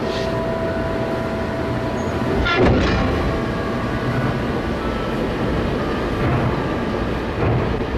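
A train running with a steady rumble, briefly louder with a sharp clatter about two and a half seconds in.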